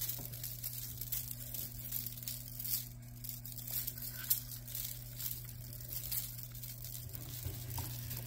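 Kittens batting and pouncing on a feather wand toy on a tile floor: rustling feathers, scrabbling paws and light scattered clicks and scratches, over a steady low hum.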